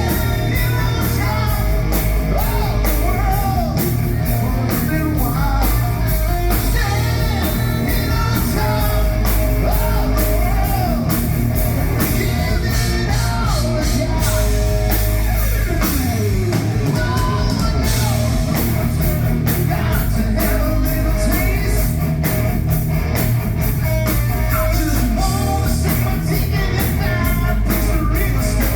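Loud rock music with electric guitar, drum kit and singing, keeping a steady, even level throughout.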